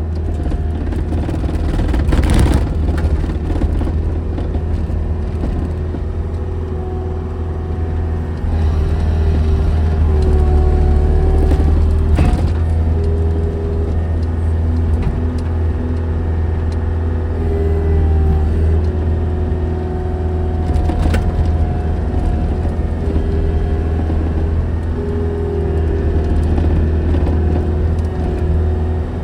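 An engine runs steadily with a strong low rumble, its pitch stepping up and down now and then. A few sharp knocks come through, about 2, 12 and 21 seconds in.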